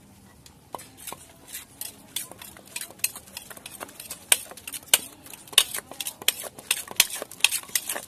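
Wooden pestle pounding and a spoon scraping and tossing papaya salad in a clay mortar: quick, irregular knocks and clinks, sparse at first and growing dense after a few seconds.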